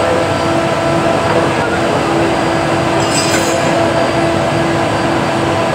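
Steady, loud drone of workshop machinery with a constant hum in it, and a brief metallic clink of a hand tool on the front end about three seconds in.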